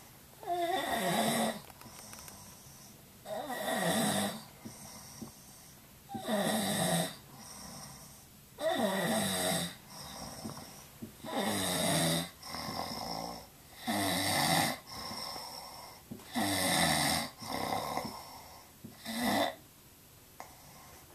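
Snoring: about eight snores, one every two and a half seconds or so, each about a second long and falling in pitch, with quieter breath sounds between them.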